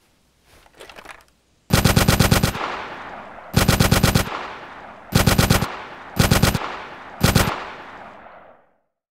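Automatic machine-gun fire, dubbed in as a film sound effect: five bursts of rapid shots, each shorter than the last, with an echoing tail after each burst.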